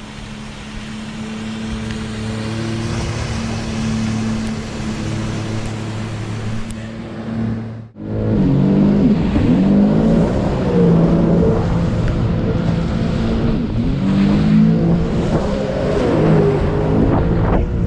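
Sea-Doo jet ski engine. At first it is a steady hum, growing louder as the craft approaches across the water. After a brief break about eight seconds in, it is heard close up at speed, its pitch rising and falling with the throttle over the hiss of spray.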